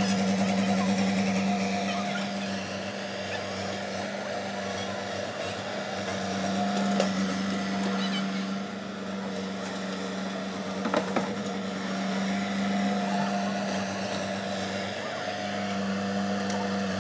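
JCB tracked excavator's diesel engine running steadily, its hum easing and rising again as the machine works, with a few short metallic clanks.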